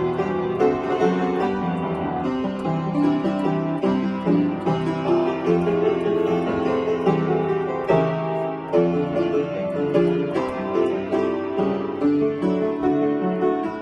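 Piano playing a continuous passage of notes and chords with frequent new attacks.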